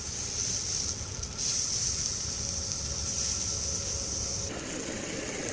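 Hot dogs sizzling as they sear in a frying pan on a butane camp stove: a steady high hiss that grows louder about a second and a half in and drops back near the end.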